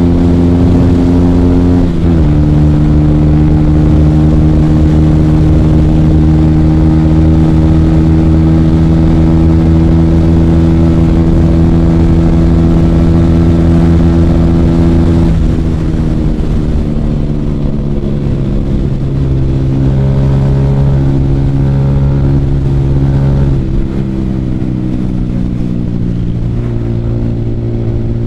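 Motorcycle engine running at a steady cruise, heard from the rider's seat. Its note drops suddenly about two seconds in, as on an upshift; about halfway through the throttle eases off and the note falls and gets quieter as the bike slows, stepping down again near the end.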